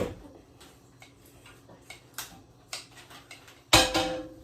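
Scattered light clicks and taps of kitchen utensils and dishes being handled, then a loud knock with a short ring, like a pan or dish set down, about three and a half seconds in.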